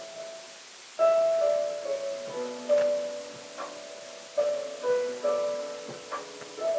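Background music: a piano-toned keyboard playing slow, sustained chords, a new chord struck every second or two.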